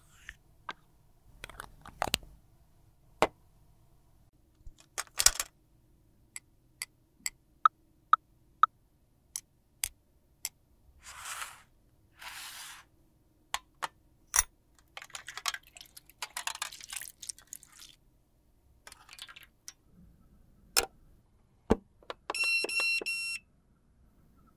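Lipstick cases and caps being handled, giving a run of sharp clicks and taps, with a few short rustling sounds in between. Near the end a high beep sounds for about a second.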